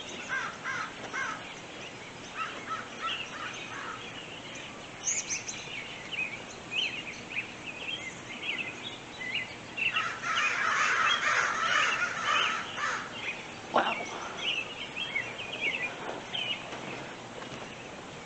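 A large flock of American crows cawing, many birds at once, in scattered calls that swell into a dense burst of calling about two thirds of the way through. Higher chirps of smaller birds run among them, and there is a single sharp knock shortly after the burst.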